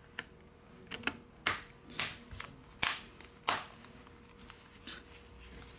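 Small phone parts and repair tools being handled during reassembly: a series of sharp clicks and short scrapes, about nine, irregularly spaced.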